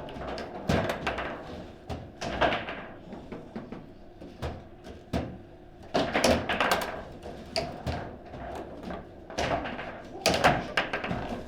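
Table football in play: a rapid, irregular run of sharp knocks and clacks as the ball is struck by the rod-mounted players and bangs against the table walls. Bunched, louder flurries of hits come about a third of the way in, about halfway and near the end.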